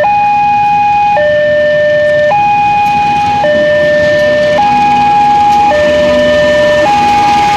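Railway level crossing warning siren sounding a loud two-tone hi-lo pattern, switching between a higher and a lower tone about once a second, warning that a train is approaching.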